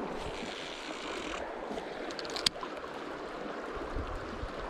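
Steady rush of fast river current. A single sharp click about halfway through, with a few soft low knocks near the end.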